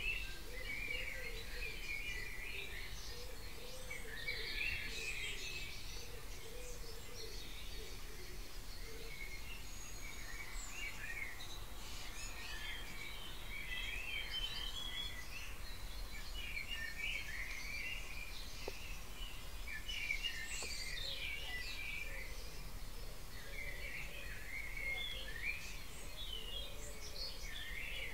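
Dawn chorus: many songbirds singing at once in overlapping phrases, with a lower wavering call beneath them, over a steady low background rumble.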